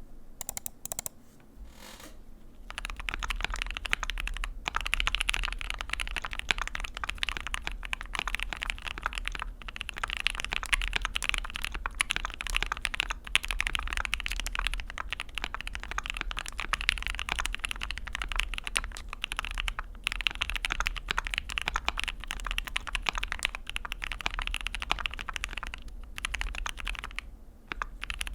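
Mechanical keyboard with lubed Zeal Tealios v2 linear switches in an ai03 Vega on an aluminium plate, with PBT keycaps, typed fast and continuously in a typing test. A few separate clicks come first, then the steady clatter of keystrokes starts about two and a half seconds in, with brief pauses.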